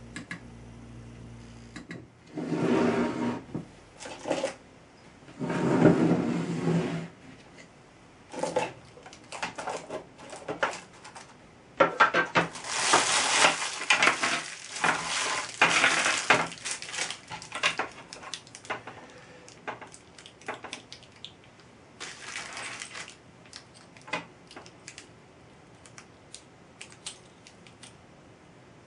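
NEMA 23 stepper motor on an Arduino-controlled driver making two short indexing moves, each a whirring burst of about a second. Then plastic bags of small fittings crinkle and rattle inside a plastic enclosure, with scattered clicks.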